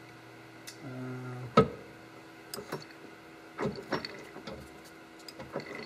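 A metal lathe turning a 3D-printed plastic bevel gear that drives a small plastic pinion, with a steady hum. Several sharp clacks come as the lathe's speed is shifted up, the loudest about a second and a half in.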